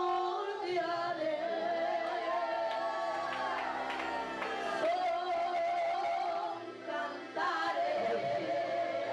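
Women singing a praise song, a lead voice carried on a microphone singing a wavering, ornamented melody over steady held tones underneath.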